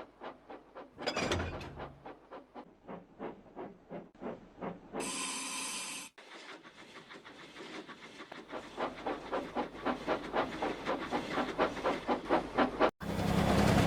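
Steam locomotive sound effect: rhythmic chuffing at about three puffs a second, broken about five seconds in by a one-second steam whistle blast, then chuffing again. Near the end it cuts suddenly to a louder steady mechanical hum.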